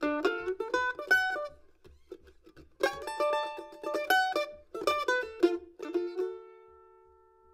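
Background music on a plucked string instrument, playing quick runs of notes that each ring and fade. There is a short pause about two seconds in, and a last note is left ringing near the end.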